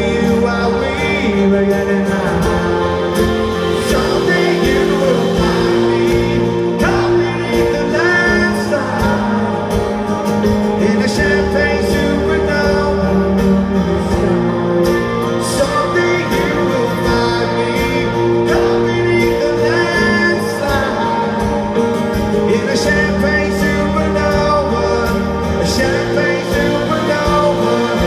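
Live rock band playing a slow song, with strummed acoustic guitar, electric guitar and a male lead vocal, heard from the audience in a large hall.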